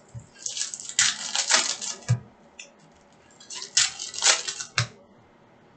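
Foil wrapper of a 2019-20 Panini Prizm basketball retail card pack crinkling as it is torn open and pulled apart by hand, in two bursts of about a second and a half each, with a dull thump at the end of each.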